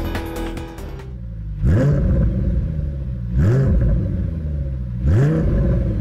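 Car engine blipped three times, about 1.7 s apart, each a quick rise and fall in pitch, after music stops about a second in. The car is an Audi A8.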